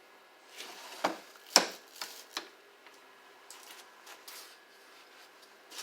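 Several sharp clacks and knocks, the loudest about a second and a half in, followed by faint scattered ticks.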